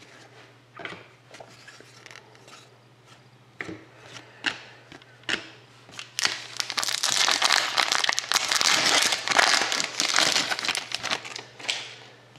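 Plastic crinkling as trading cards are handled, preceded by scattered light clicks and taps; the crinkling is dense for about four seconds from the middle of the stretch, then gives way to a few more taps.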